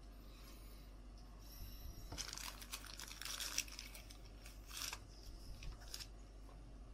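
Trading cards and plastic penny sleeves rustling and crinkling in gloved hands: a run of quick, scratchy rustles from about two to five seconds in, loudest around the middle, then a couple of short rustles.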